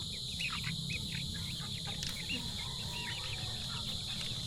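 Young chicks peeping: many short, high chirps in quick succession, over a steady high-pitched drone.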